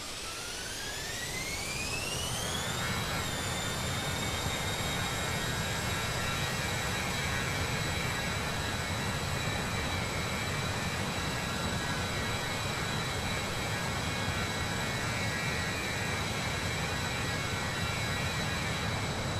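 A-10 Thunderbolt II's twin TF34 turbofan engines spooling up to high power: a whine rising in pitch over the first three seconds, then holding as a steady high whine over a constant rushing roar.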